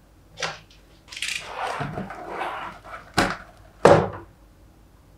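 Cardboard speaker box being opened and handled on a table: a rustling scrape of packaging and three sharp knocks as the box and its parts are moved and set down.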